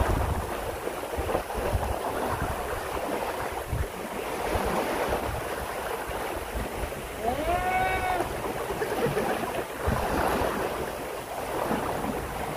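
Sea waves washing at the shore, with wind rumbling on the microphone. About two-thirds of the way in, a single short call rises in pitch and then holds.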